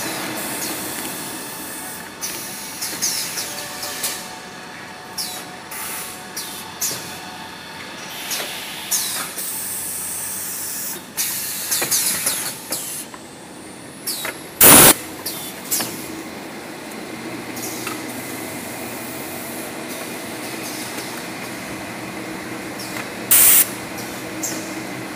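Toilet-paper converting and packing machinery running: a steady mechanical hum with frequent clicks and clatter. Two short, loud hisses stand out, about fifteen seconds in and again near the end.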